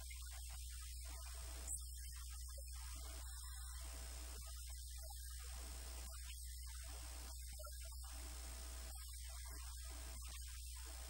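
Steady electrical mains hum with a faint high-pitched steady tone over it, and one short click just under two seconds in. No speech is heard.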